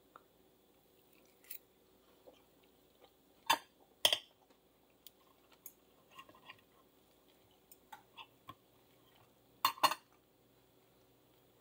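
Metal fork and knife clinking and scraping on a ceramic plate while cutting a pancake: scattered light clinks, with louder ones about three and a half and four seconds in and a close pair near the end.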